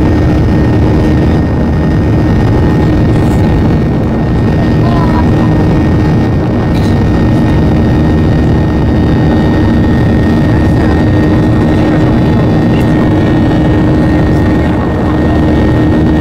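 Cabin noise of a Boeing 737-800 climbing after takeoff, heard from a window seat beside the engine: the CFM56-7B turbofans run steadily at climb power under the rush of air past the fuselage, with a steady low hum and a thin high whine.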